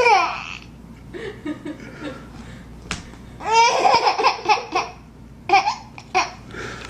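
A baby laughing: a high squeal at the start, then a quick run of short laughs a little past halfway, and a couple more bursts near the end.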